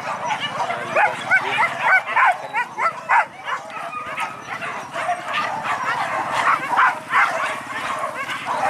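A group of leashed boar-hunting dogs yelping and whining excitedly, many short high yelps overlapping one another without a break.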